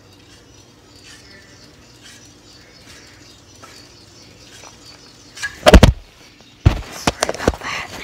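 A faint steady low hum, then loud sharp knocks and bumps in two clusters: one about five and a half seconds in, and several more about a second later.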